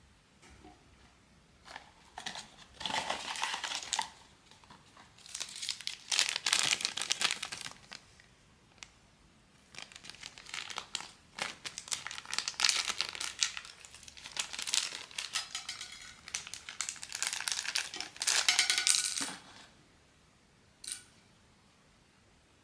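Plastic and cardboard blind-box packaging crinkling and rustling in several handling bursts as the box and the figure's wrapper are opened by hand, ending with a single short click.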